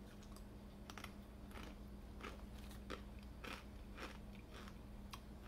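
A crunchy spiced umbrella cookie being bitten and chewed: a crisp bite about a second in, then crunching chews about twice a second.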